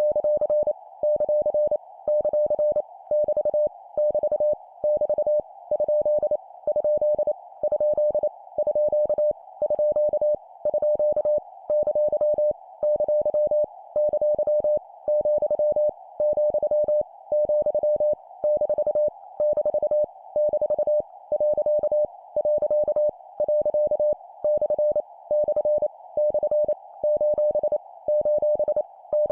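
Morse code (CW) practice tone, a steady beep near 600 Hz keyed on and off at 25 words per minute, sending punctuation characters in quick groups separated by short gaps. A steady hiss sits around the tone.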